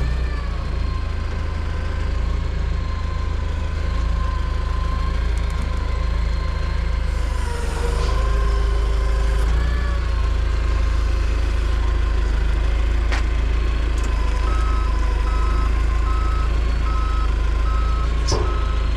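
Heavy diesel equipment running steadily, its engine note rising and getting louder about eight seconds in. A backup alarm starts beeping at an even rate a few seconds before the end.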